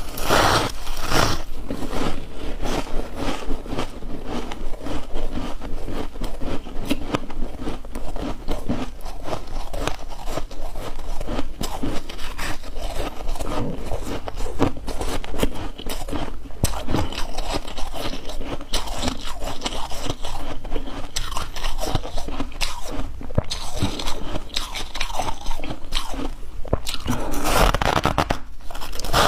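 Chunks of ice being bitten and chewed close to the microphone: a dense, unbroken run of crisp crunches and scraping crackles.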